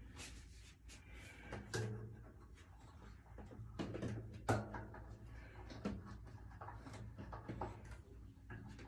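Scattered knocks and clicks of drum hardware being handled while a drum's legs are adjusted to stand straight, the sharpest knock a little past halfway, over a low steady hum.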